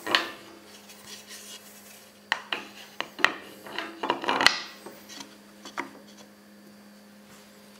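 A plywood board handled against a stopped table-saw blade and the metal saw table: a series of light knocks, clicks and scrapes, mostly between about two and four and a half seconds in, over a steady low hum.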